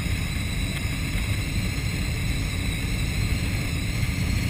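Steady rush of wind and airflow noise in a Schweizer 1-34 glider's cockpit on aerotow, its canopy come open in flight and held down by hand.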